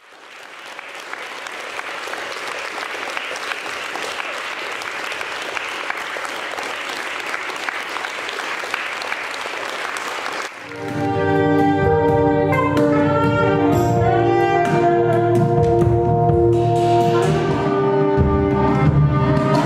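Audience applause fades in and holds steady for about ten seconds, then cuts off abruptly into live ambient music: a low sustained bass drone under long held and gliding melodic tones.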